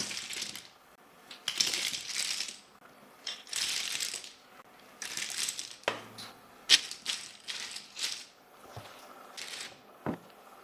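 Hard plastic keyboard parts rattling and clicking in a string of short bursts, about half a dozen, with sharp single clicks between them.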